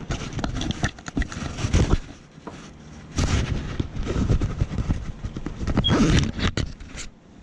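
Irregular clattering knocks and clicks of a UPS's plastic casing being handled and refitted by hand, with a short lull about two seconds in.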